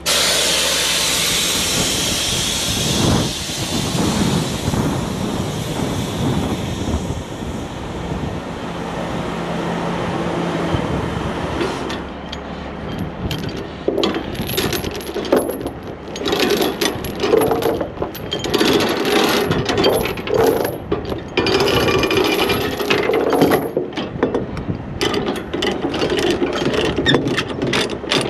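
Steady rushing wind-and-road noise for about the first twelve seconds, then a fast run of mechanical clicking and clattering for the rest.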